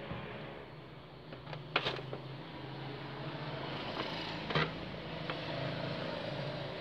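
A few sharp plastic clicks and knocks, the loudest about two seconds and four and a half seconds in, as an oval TV speaker is worked loose and pulled out of its plastic mounting bracket, over a steady low hum.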